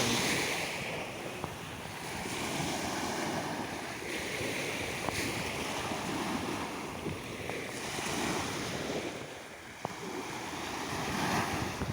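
Small sea waves washing on a calm shore, the wash swelling and fading every few seconds, with wind rumbling on the microphone.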